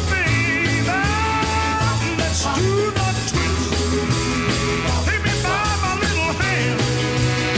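Upbeat rock-style music with a steady drum beat, a repeating bass line and a gliding melody line over it.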